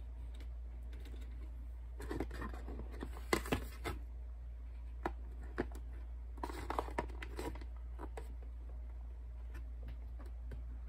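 Small plastic dolls being handled and moved on a tray: scattered light clicks and rustling in two short clusters, a few seconds in and again midway, over a steady low hum.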